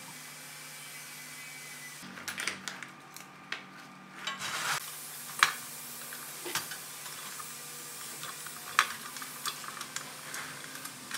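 Light metal clicks, clinks and short rattles of parts and brackets being handled and fitted into a sheet-steel amplifier chassis. Two sharper clicks stand out, about five and nine seconds in.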